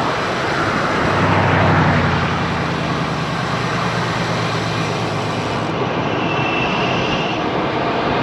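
Wind and road noise while riding a bicycle along a busy highway shoulder, with the low steady hum of a passing motor vehicle from about one second in to about five seconds.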